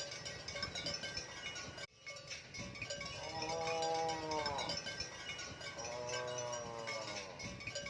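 Two drawn-out cow moos, each rising and then falling in pitch, over background music with chiming tones.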